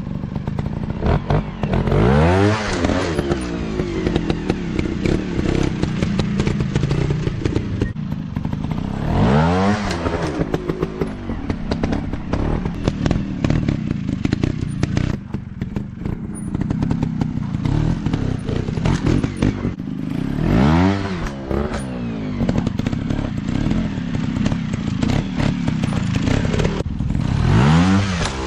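Small trail motorcycle engines running, revving up and back down four times, with scattered knocks and clatter between the revs.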